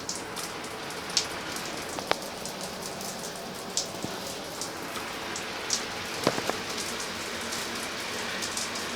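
Overhead rain shower head running: a steady hiss of water spraying down and splashing, with scattered sharper drip and splash ticks.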